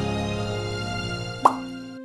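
Music with held notes slowly fading out, then about one and a half seconds in a short, sudden sound effect with a quick upward pitch sweep, followed by a held low note.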